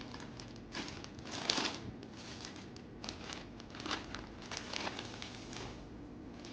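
Laptop packaging being handled, crinkling and rustling in irregular strokes, loudest about a second and a half in.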